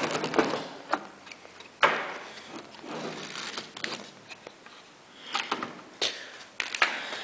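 A graphics card being jammed into a motherboard's PCIe slot inside a computer case: a series of sharp plastic and metal clicks and knocks with scraping and rustling between them as it is pushed and worked into place.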